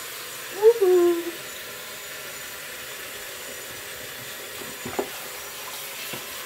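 Bathroom sink tap running, water pouring into the basin as a hand rubs the glitter and slime out of it. Early on a brief vocal sound from the person rinsing rises over the water, the loudest moment, and a small click comes near the end.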